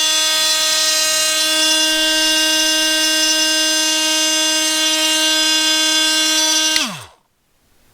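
Milwaukee M18 Fuel 2836-20 cordless oscillating multi-tool running at a steady speed with a loud, even buzz. About seven seconds in it winds down in pitch and stops as the trigger is released.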